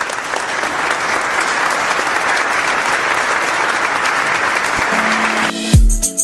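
Steady applause for about five seconds. Electronic music comes in near the end with a held tone, then a deep bass hit.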